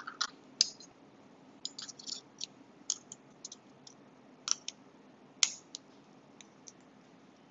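Small metal parts of a disassembled Kizer Apus folding knife (washers, pins, bearing washer) clicking and clinking as they are handled and set down on a cutting mat: a scatter of short sharp ticks, the loudest about half a second, four and a half and five and a half seconds in.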